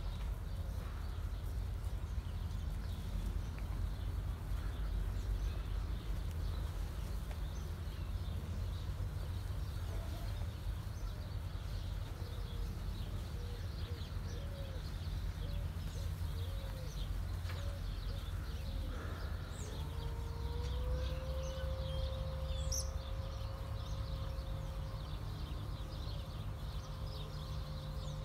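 Scattered short bird chirps and a run of soft, low bird calls over a steady low rumble. About two-thirds of the way through, a steady hum comes in and holds.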